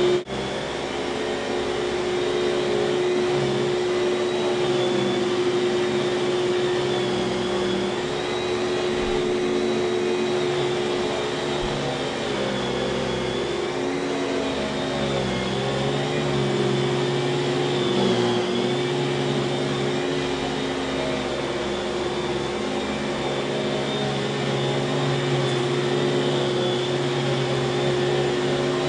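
1995 Kenmore canister vacuum cleaner with its dual-stage Lamb motor running: a steady whine, with lower tones that waver up and down in pitch.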